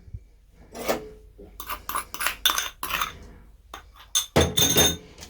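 Sugar and grated lemon zest being spread around a cake mould: a series of short scrapes and knocks against the pan, with one louder ringing clink near the end.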